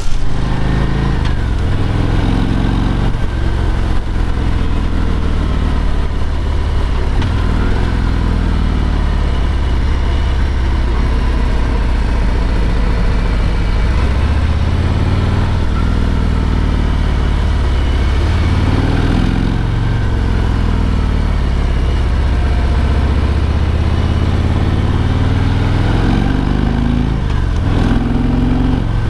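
Harley-Davidson Road King Special's V-twin engine running, its note rising and falling a few times with the throttle.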